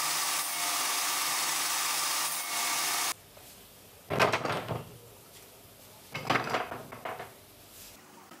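A power tool's motor running steadily with a high whine, cut off abruptly about three seconds in. Then come two short scraping rubs of wood on wood, about two seconds apart.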